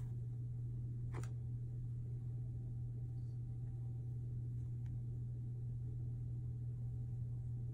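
A steady low hum, with one short click about a second in and a faint tick near five seconds.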